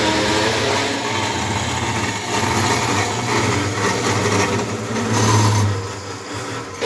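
Automatic burr-free metal cutting machine (400BC) running, a steady motor hum with cutting noise over it. It swells briefly about five seconds in, then eases off.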